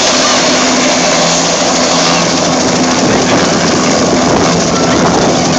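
Bell helicopter's turbine engine running with the main rotor turning while it sits on the ground. A steady, loud rushing noise with a steady low hum underneath.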